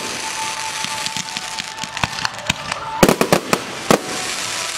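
Fireworks going off: a continuous crackle of bursting stars with many sharp bangs, a quick cluster of them about three seconds in and another loud one near four seconds.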